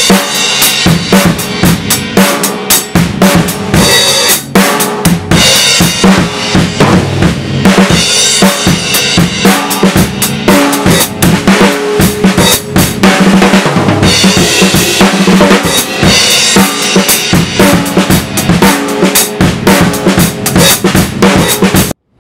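Acoustic drum kit played with sticks: a continuous, busy drum beat of bass drum, snare and cymbals, which cuts off abruptly near the end.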